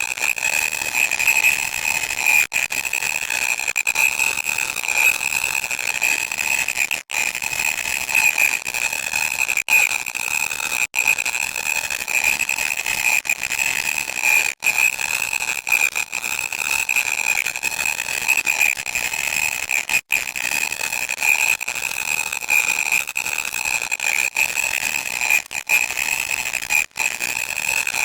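Loud, harsh electronic static: a steady high-pitched buzzing tone over dense crackle, running on without let-up apart from a few split-second cut-outs.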